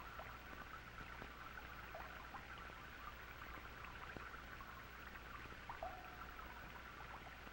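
Faint steady hiss and low hum of an old film soundtrack, with scattered small crackles and clicks.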